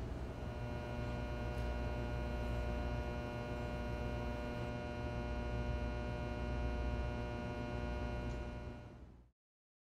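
Steady electrical hum with a buzzy stack of overtones. It fades out about nine seconds in, leaving silence.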